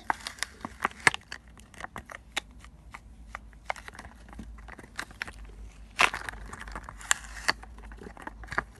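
Small water-filled rubber balloons, made sticky with soap, being squeezed, rubbed and pulled apart in the hands: irregular sticky crackles and clicks, with a few louder ones about a second in and again around six and seven seconds in.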